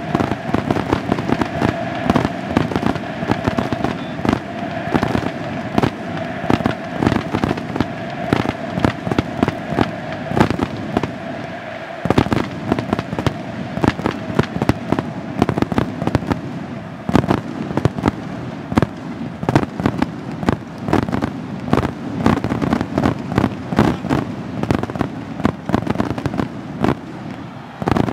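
A fireworks display: a dense, irregular string of firework bangs and crackles, many per second. A steady tone runs under the bangs for about the first twelve seconds, then fades.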